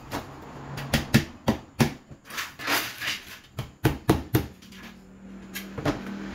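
Small cut pieces of aluminium sheet being picked up, set down and tapped together on a concrete floor: about a dozen sharp knocks and clicks, with a short scraping stretch in the middle.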